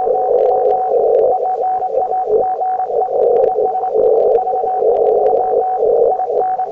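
Shortwave radio receiving Morse code (CW) on the 20-metre band: a keyed beeping tone pulsing on and off through dense hissing band noise, heard through the receiver's narrow CW filter.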